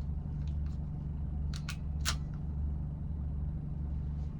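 A few small sharp clicks from a crimping tool and solar cable connector being handled, over a steady low hum.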